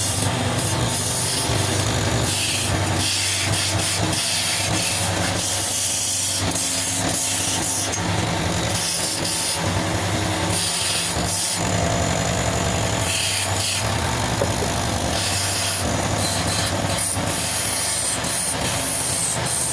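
Wood lathe running with a steady motor hum while a turning chisel cuts the spinning wood in repeated passes, the high scraping hiss of the cut coming and going.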